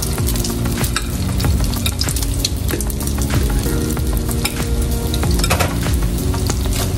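Spoonfuls of malanga fritter batter frying in hot lard, a dense sizzle with scattered pops and crackles, over a steady low hum.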